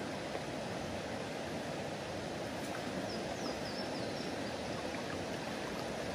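Steady rush of flowing river water, an even wash of sound without pauses.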